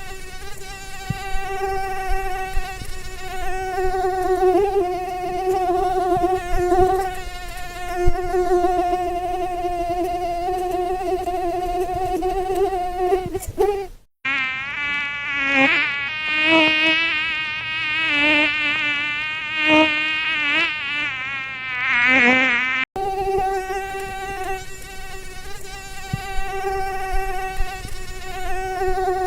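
Mosquito wingbeat whine: a steady, slightly wavering high buzz. About halfway through it cuts to a different recording in which the pitch wobbles up and down as the mosquito flies around, then the steady whine returns.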